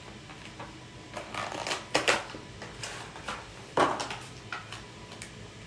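Clicks and crinkling of plastic packaging being handled as a new filler syringe is unpacked, with the sharpest clicks about two seconds in and again near four seconds.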